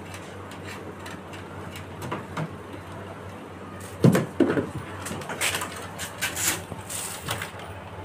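Handling noise from wiring work on a washing machine: two dull knocks about four seconds in, then scattered clicks and rustles of wires and plastic parts.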